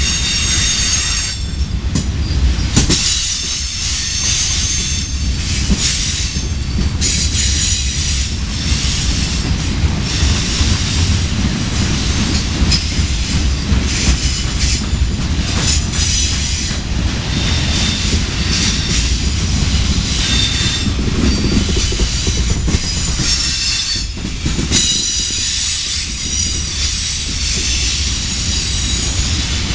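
Freight train cars rolling past with a steady low rumble, high-pitched wheel squeal that comes and goes, and a few sharp knocks.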